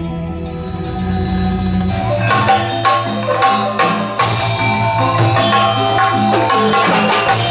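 Gamelan music: held, sustained tones for about two seconds, then quick struck tuned metal percussion in a busy pattern over a steady low tone.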